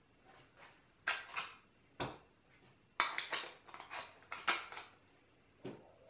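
Stainless steel Leatherman Surge multi-tool clinking and scraping against its brass belt holster: a run of sharp metallic clicks and short scrapes, loudest about three and four and a half seconds in.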